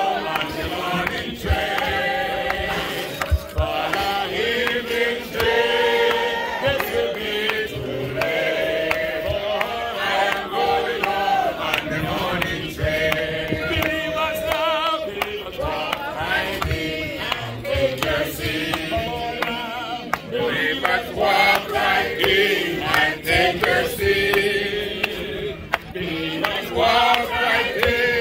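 A graveside congregation of men's and women's voices singing a gospel chorus together, in long held notes.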